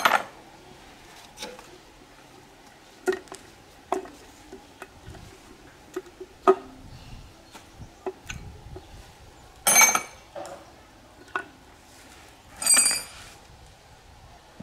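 Steel differential parts clinking and knocking as they are handled and set down: scattered sharp metal clicks, with two longer, louder ringing clangs in the second half.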